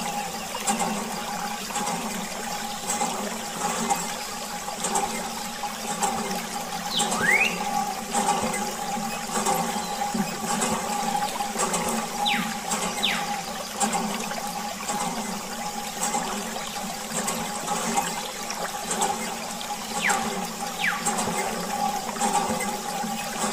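Water running steadily out of a thin plastic tube and trickling onto a toy, over a steady hum.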